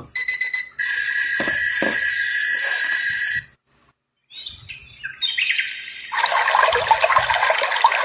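Built-in alarm tones of a Kstar ANJANK AC003 radio alarm clock playing through its small speaker. A few short electronic beeps are followed by a steady buzzer-like alarm tone for about three seconds. After a brief pause, a recorded birdsong alarm of busy chirping starts up and fills the rest.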